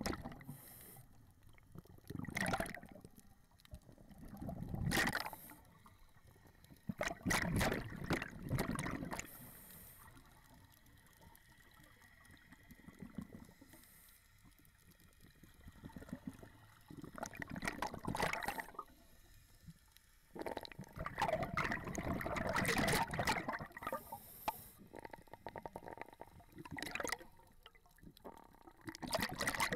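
Scuba diver breathing underwater through a regulator: exhaled bubbles gurgle out in bursts every few seconds, with brief hisses of inhalation between them.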